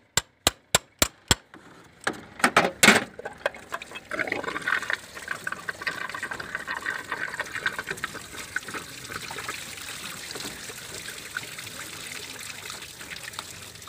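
Hammer tapping on an engine water pump to free it: about five quick light taps in the first second and a half, then a few harder strikes around two to three seconds in. After that, engine coolant pours and trickles out steadily as the pump comes loose, slowly fading.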